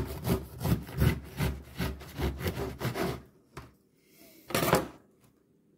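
A knife sawing through a crusty loaf of brown soda bread on a wooden chopping board, about three strokes a second, which stop a little after three seconds in as the slice comes away. One short, louder noise follows about a second and a half later.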